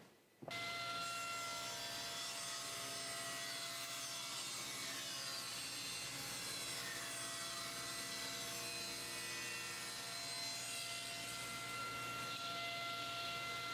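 Table saw running steadily with a constant whine, cutting a cherry board; it starts suddenly about half a second in.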